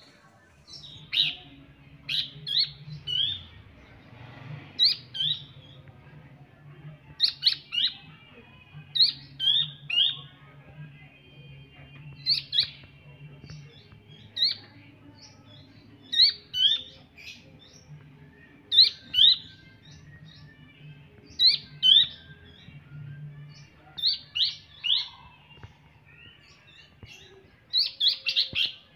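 Juvenile Horsfield's babbler (pelanduk semak) calling: short, sharp, high notes that drop in pitch, mostly in quick clusters of two to four, repeated every second or two.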